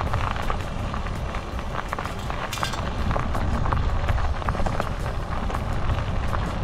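A folding electric bike rolling over a gravel track: a steady crunch and crackle of stones under the tyres, with wind buffeting the microphone.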